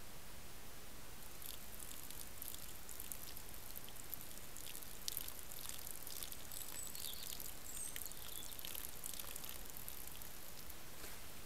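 Red deer stag feeding right at a trail camera: a run of small crisp clicks and crackles as it nibbles and noses at the forest floor, over the camera's steady hiss.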